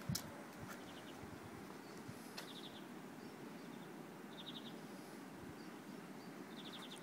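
Faint outdoor ambience: a steady low hiss with a short, fast, high-pitched chirp repeated four times, about every two seconds. A couple of sharp knocks right at the start.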